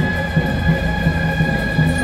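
Music played over loudspeakers: a long held high note over a steady low beat of about three pulses a second.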